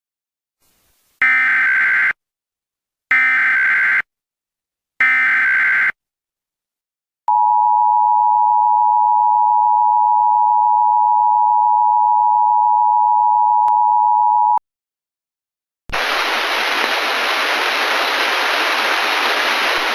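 Emergency Alert System tornado-warning opening. First come three one-second bursts of screeching SAME header data, about two seconds apart. After a pause the steady two-tone EAS attention signal sounds for about seven seconds, and near the end a steady static hiss begins.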